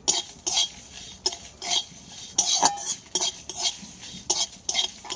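Metal spatula scraping and stirring whole spices and dried red chillies around a dry metal kadai, in short repeated strokes a few times a second, as the spices are dry-roasted.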